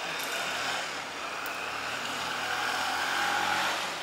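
A motor vehicle's engine droning steadily, growing a little louder over a few seconds.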